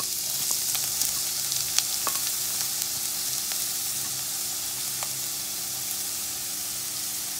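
Chopped onions sizzling steadily in hot oil in a nonstick pan as they are tipped in from a bowl, with a few light clicks and taps scattered through.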